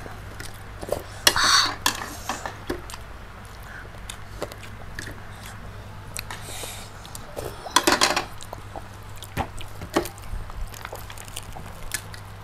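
Close-miked eating: bites and chewing of crispy fried chicken and rice, with scattered clicks of a plastic spoon on a plate, in short separate bursts, the loudest about a second and a half in and again about eight seconds in.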